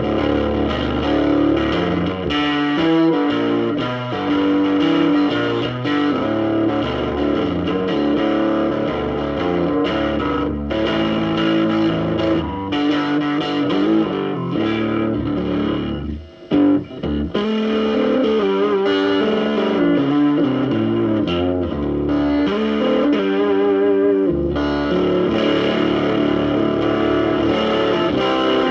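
Electric guitar played through a Davoli D531T 10W push-pull tube amplifier, a continuous run of notes and chords with a slightly distorted tone and a brief break about halfway through.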